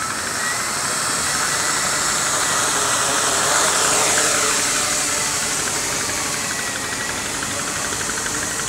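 T380 quadcopter's electric motors and propellers running, a steady whirring rush as it lifts off and hovers, with the motor pitch shifting about halfway through.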